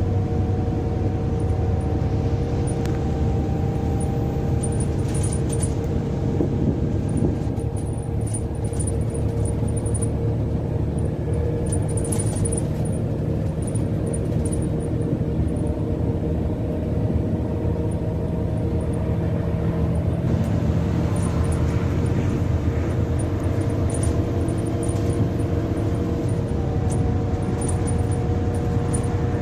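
Volvo Wrightbus Gemini double-decker bus under way, heard from inside on the upper deck: a steady engine and road rumble with a constant whine and a second, higher whine that slowly drifts in pitch. A few faint rattles come and go.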